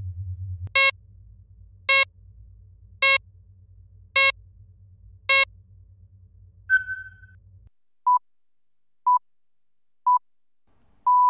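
Synthetic app interface sounds over a low electronic hum: five loud buzzy alert beeps about a second apart, then a short higher blip. After the hum stops, a countdown of three short pure beeps a second apart ends in a longer beep, the cue that recording starts.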